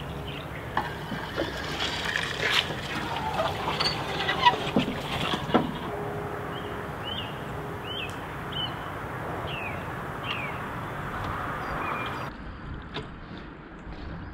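Water swirling and dripping around a paddled canoe, with a few light knocks in the first half. A small bird then gives about six short, falling chirps.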